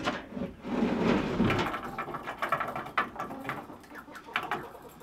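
Hinged wooden chicken roost of 2x4s and slats being lifted and swung up on its pivots, its lumber scraping and knocking against the coop framing, with several sharp knocks.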